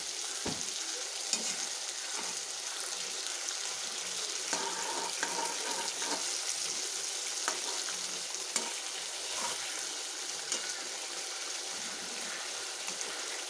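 Mustard and poppy-seed fish curry sizzling in a metal kadai over a gas flame, a steady hiss, with a spatula scraping and clicking against the pan now and then as it spoons gravy over the fried fish.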